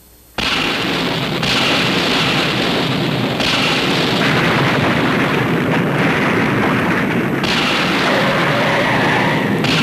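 Thunder sound effect: a loud rumbling that starts suddenly about half a second in and goes on without a break.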